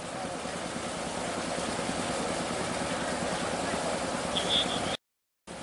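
A boat engine running steadily at idle, with a short high beep near the end.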